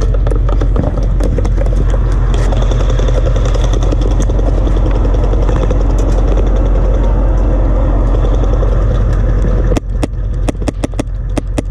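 Humvee engine running steadily at close range, with scattered sharp ticks over it. Near the end the engine sound drops away and a quick string of about ten sharp cracks follows, airsoft rifle shots.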